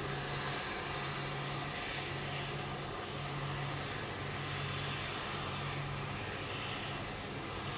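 Airbus A330 jet engines at taxi power: a steady, even rush, with a low hum that comes and goes underneath.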